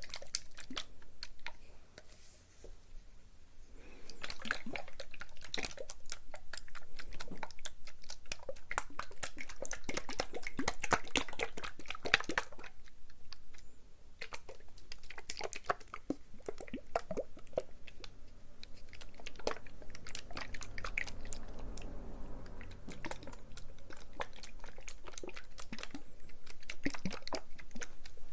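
Close-up ASMR trigger sounds: dense, irregular crackling and clicking, dipping quieter a couple of seconds in and again around the middle.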